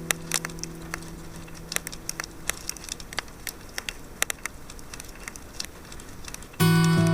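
Wood fire crackling with scattered irregular pops and snaps while a held guitar chord dies away at the start. About six and a half seconds in, the guitar comes back in with a loud chord.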